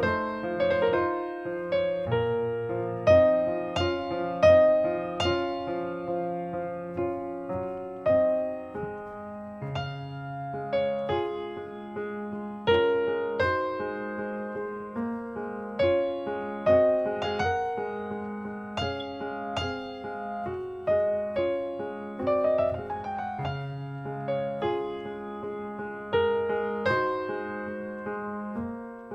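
Piano music: a steady flow of gently struck, decaying notes, with a quick run of rising notes a little past the middle.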